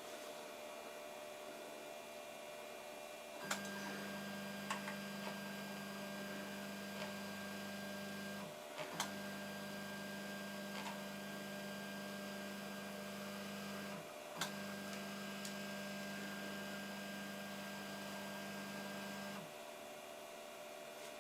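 Stepper motors driving a 3D printer's timing-belt-synchronized Z axis: a steady hum with a high whine starts a few seconds in and runs in three long moves, each break marked by a brief pause and a click, stopping near the end.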